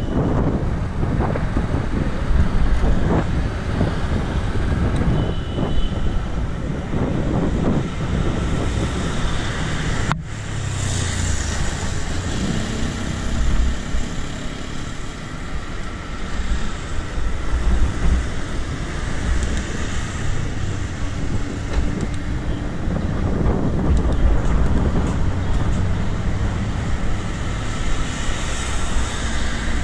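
Wind rushing over the microphone of a moving bicycle, with road traffic noise underneath; the noise runs on steadily, with a brief dip about ten seconds in.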